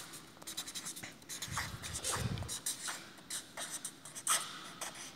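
Felt-tip marker writing letters on paper: a run of short scratchy pen strokes, with a dull low rumble of hand and paper handling about two seconds in.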